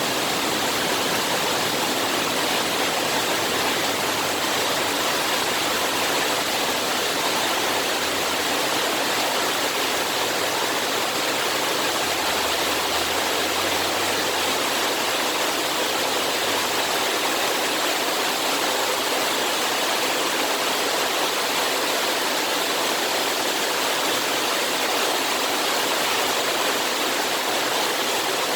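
Steady rain falling, a dense even hiss that does not let up.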